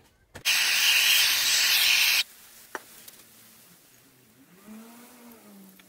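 A loud burst of hissing spray, just under two seconds long, blasting out the crankcase's main-bearing bore to clean it, then cutting off suddenly. A single faint click follows.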